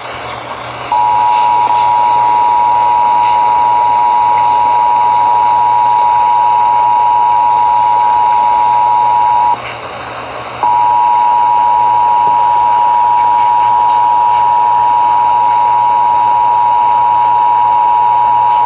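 Emergency Alert System two-tone attention signal (853 Hz and 960 Hz together), a steady loud tone that sounds for about eight and a half seconds, breaks off for about a second, then sounds again, heard over an AM radio broadcast with background hiss.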